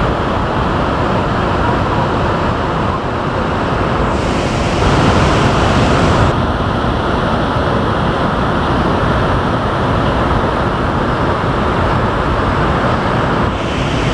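Miyagase Dam's controlled release: two jets of water from outlets in the concrete dam face crash into the plunge pool with a loud, steady rush, briefly louder and hissier about four to six seconds in.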